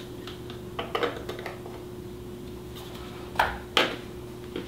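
Light clicks and taps of a small spice jar and its plastic cap being handled while measuring, with two sharper clicks about three and a half seconds in. A faint steady hum runs underneath.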